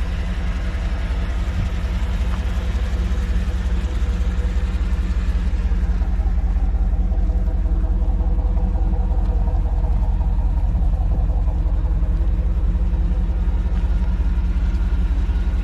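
A car engine idling steadily, a low, even rumble.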